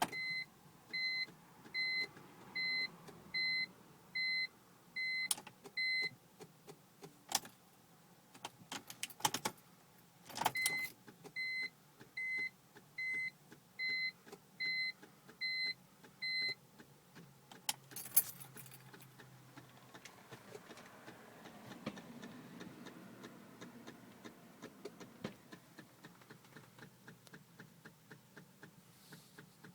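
Car warning chime beeping about once a second in two runs, with keys jangling and sharp clicks in between. From about two thirds of the way in, a fast, light ticking goes on while the engine neither runs nor starts, in a 2004 BMW 325Ci that will not start.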